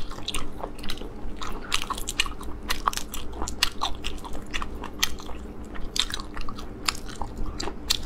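Close-miked eating of spicy snails: irregular wet clicks and smacks of chewing and of the meat being pulled from the shells by hand.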